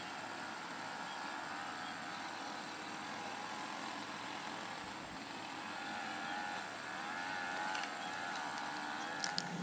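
A distant engine hums steadily, its pitch wavering slightly, over a steady background hiss; a few sharp clicks near the end.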